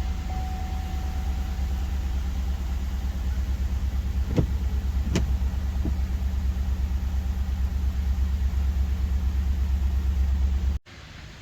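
A car running, heard as a steady low rumble, with a few sharp clicks around the middle. The sound cuts off suddenly near the end.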